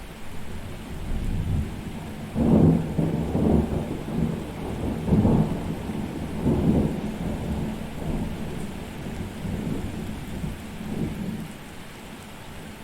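A thunderstorm: steady rain hiss under a long rolling peal of thunder that builds about two seconds in, cracks loudest twice in the first half, and rumbles away near the end, leaving the rain.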